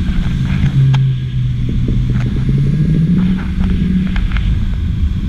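Wind rumbling over the microphone of a camera on a parasail climbing behind its tow boat, with a steady hum underneath, likely the boat's engine, that rises in pitch about halfway through, plus a few faint clicks.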